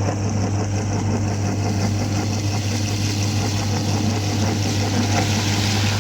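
Electric meat grinder's motor running with a steady hum.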